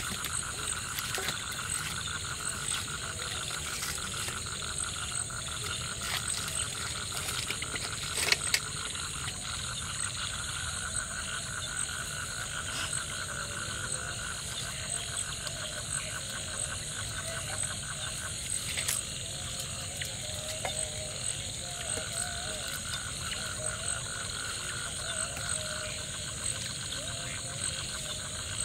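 Night chorus of frogs and insects in the jungle: a rapid, even pulsing call that pauses for a few seconds about two-thirds of the way through, over steady high-pitched insect trilling. A few sharp knocks come about eight seconds in.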